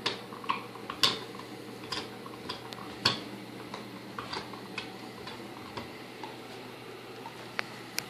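A dog gnawing a hard nylon chew bone (Nylabone), its teeth clicking and knocking on it in irregular sharp taps, about one or two a second.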